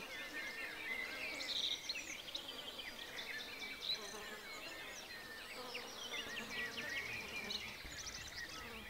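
Faint, busy chorus of many short, high chirps and twittering calls from small animals, running on over a soft background hiss.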